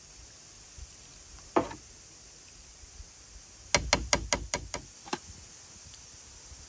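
Metal ladle knocking against the rim of a large aluminium pot of cooked plums: one softer clunk, then a quick run of about eight sharp taps midway through.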